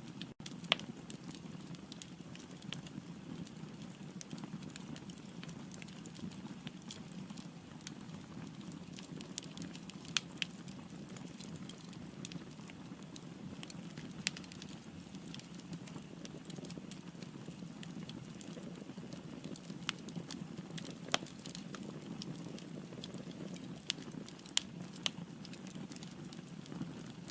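Firewood burning in a fireplace: a steady low rush of flame with irregular sharp crackles and pops of the wood, a few louder snaps scattered through.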